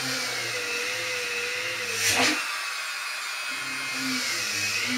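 Small corded rotary tool running at a steady whine while it drills a hole through a plastic tube, with one brief louder rasp about two seconds in.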